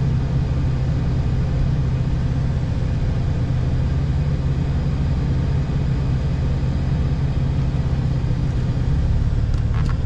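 Motor vehicle engine running with a steady low rumble.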